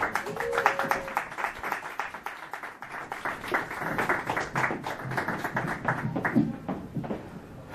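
Small audience clapping and applauding, the claps thinning out near the end.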